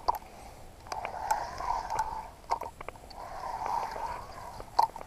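Spinning reel being cranked in spurts of about a second at a time, a whirring rustle broken by sharp clicks, as line is wound in on a hooked piranha.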